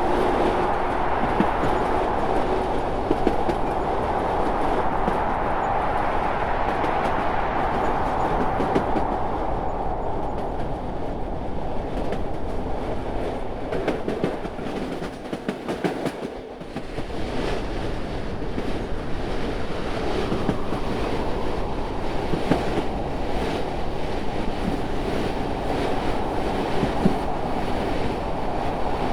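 Train running along the rails: a steady rumble with the wheels clacking over rail joints. The sound dips briefly about halfway through, then returns.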